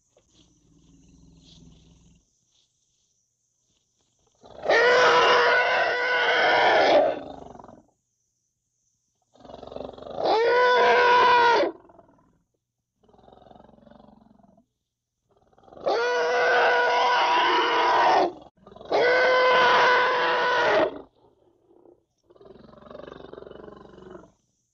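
Young African elephant trumpeting: four loud, drawn-out calls of two to three seconds each, the last two close together. Quieter low rumbling sounds come between them, near the start, in the middle and near the end.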